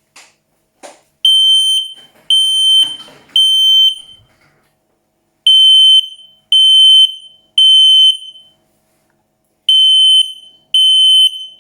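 UNI/Siterwell IAN 283702 photoelectric smoke alarm set off with its test button: very loud high-pitched beeps in groups of three, with a pause between groups, the standard temporal-three alarm pattern. Two short clicks come just before the first beep.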